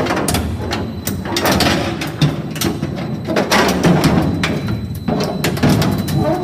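A crushing machine breaking up hard material: a dense, irregular run of loud cracks and knocks.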